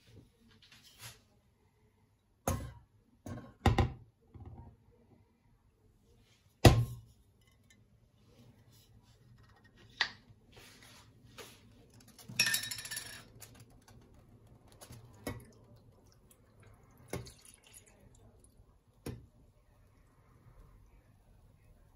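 Scattered knocks and clinks of kitchen handling around a stainless steel pot on a glass-ceramic hob. The loudest is a sharp knock about seven seconds in, and a short hissing rustle comes around thirteen seconds.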